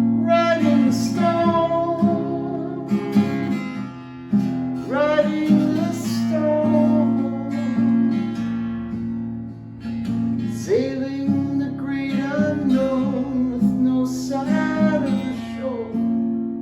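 A man singing a singer-songwriter song over his own strummed acoustic guitar, in four sung phrases starting about half a second, five, eleven and fourteen seconds in, with the guitar chords carrying on between them.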